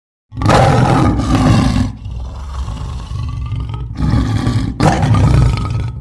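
Lion roar sound effect: after a short silence, a long loud roar, then a quieter rumbling stretch, then two more loud roars with a short break between them.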